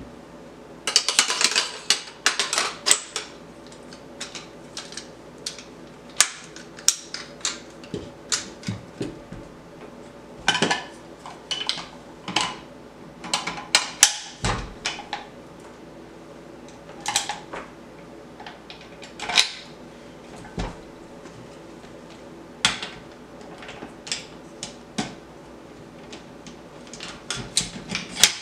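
Metal clicks, clacks and scrapes of a Nemesis Arms ANSR bolt-action rifle's parts being fitted and locked into place by hand during a toolless calibre conversion. The sharp clicks come irregularly, singly and in quick clusters.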